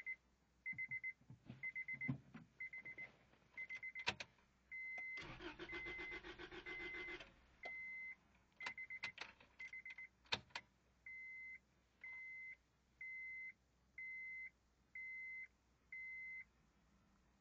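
Acura Integra's starter cranking the engine for about two seconds without it catching, amid the steady beeping of the car's warning chime and a few sharp clicks. The engine cranks but does not start.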